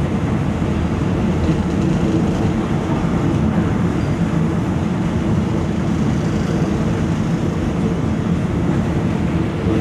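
Passenger train running steadily, heard from aboard: a constant rumble of wheels and carriage with a low steady hum.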